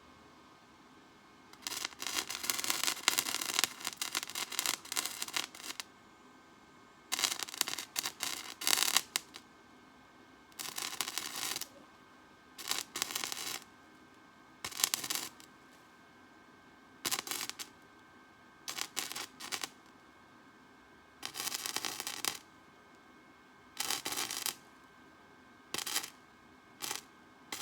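Welder laying short welds on steel, a harsh crackling hiss that comes in about a dozen bursts of half a second to a few seconds each, separated by brief pauses.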